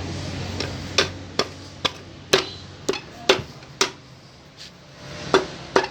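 About nine sharp knocks, irregularly spaced with a pause about four seconds in, as the clutch-side cover of a CD 70 motorcycle engine is tapped down onto the crankcase until it seats.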